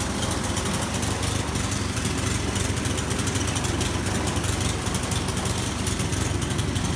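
Gasoline snowblower engine running steadily at working speed.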